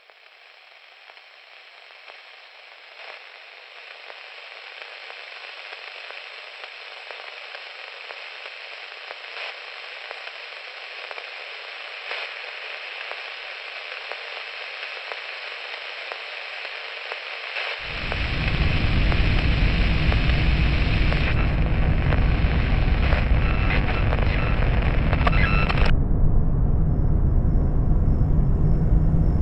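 A crackling hiss, like static, fades in and slowly grows louder with scattered small pops. About two-thirds of the way through, a loud low rumble starts and continues. The crackle cuts off suddenly near the end.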